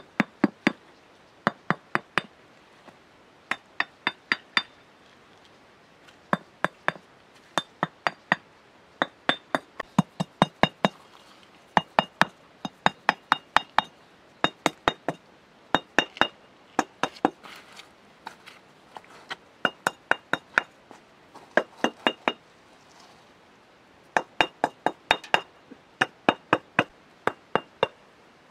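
Red clay bricks being tapped down into a wet mortar bed as they are laid. The taps are sharp clinks with a short bright ring, coming in quick runs of three to six every second or two.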